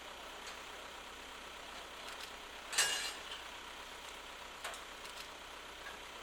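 Steady engine noise of heavy machinery idling. About three seconds in there is one short, sharp, loud burst, and a couple of fainter knocks follow near the end.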